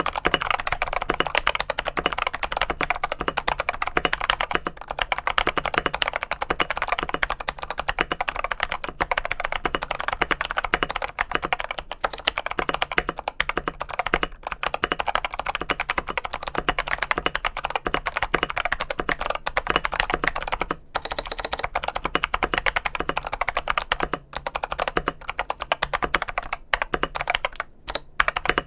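Fast continuous typing on a mechanical keyboard fitted with clicky switches, each keystroke giving a sharp click, with a brief pause about two-thirds of the way through.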